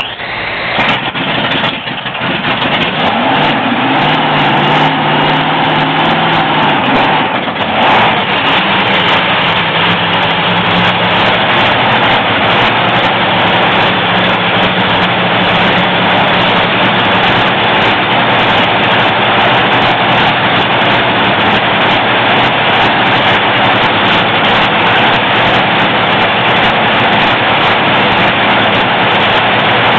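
Top Fuel dragster's supercharged, nitromethane-burning V8 running in a pit warm-up. It comes up to speed over the first couple of seconds, runs at a loud idle, gives a brief sharp rev about eight seconds in, then holds steady.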